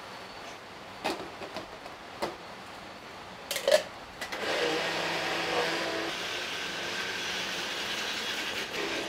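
A few knocks as the jar and motor unit are handled, then, about four seconds in, an electric mini chopper (a hand blender with a chopper bowl) runs steadily for about five seconds, blending basil sauce, and stops.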